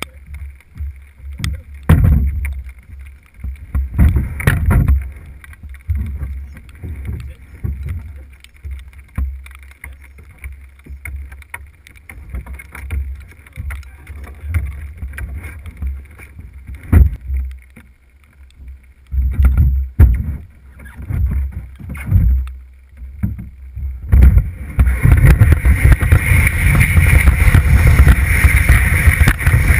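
Scattered low knocks and bumps on a canoe hull as a dog and a person climb in and shift about. About 25 seconds in, this gives way to a continuous loud rushing scrape as the canoe slides downhill over snow.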